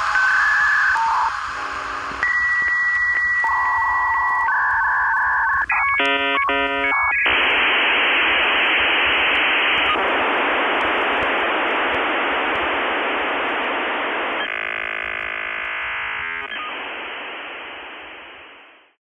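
Electronic telephone-line sound: a few steady beeping tones, a quick burst of rapidly switching tones about six seconds in, then a long hiss that fades out near the end.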